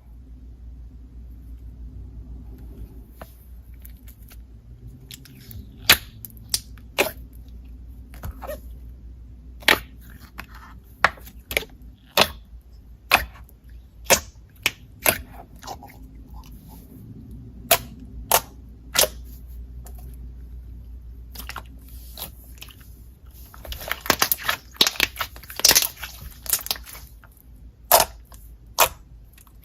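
Slime being squeezed and pressed by hand, giving sharp pops and clicks at irregular intervals, with a quick run of crackling pops about three-quarters of the way through.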